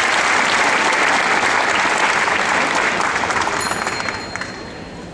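Crowd of spectators applauding, dying away about four seconds in.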